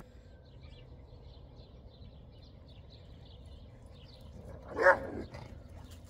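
A dog barks once, sharply, just under five seconds in, over faint bird chirping.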